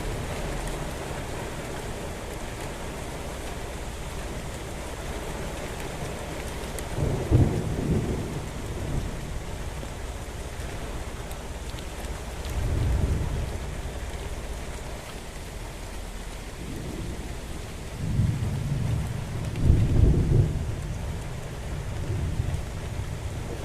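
Steady rain falling during a thunderstorm, with thunder rumbling low several times: once about a third of the way in, again near the middle, and longest and loudest toward the end.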